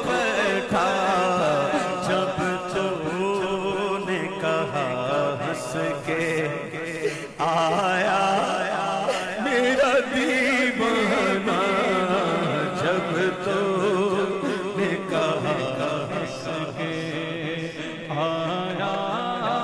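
Male naat reciter singing a devotional Urdu naat into a microphone, with a melismatic, chant-like vocal line and a brief break about seven seconds in.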